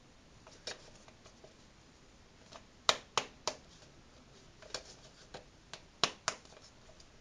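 Plastic toy binoculars being handled: scattered sharp plastic clicks and knocks, with three quick clicks about three seconds in and two more about six seconds in.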